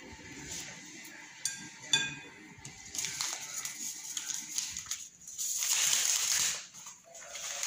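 A metal whisk clinks twice against a glass mixing bowl, then small paper sachets rustle and crackle as they are handled and torn open, loudest about two-thirds of the way through.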